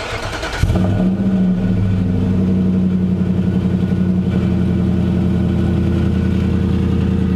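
Nissan Titan's V8 cranked over by the starter, catching after well under a second, then idling steadily through a Banks aftermarket exhaust.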